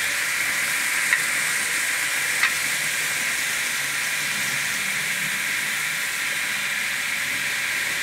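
Onboard sound decoder of a Fleischmann N gauge BR 110 electric locomotive playing its uncoupling sound through the model's small speaker: a steady hiss with two short clicks about a second and a half apart.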